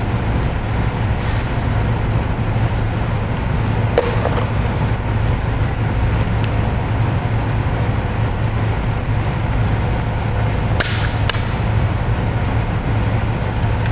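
Steady low background hum, with a sharp snap of cooked lobster shell broken by hand about four seconds in and a brief crackle of shell near eleven seconds.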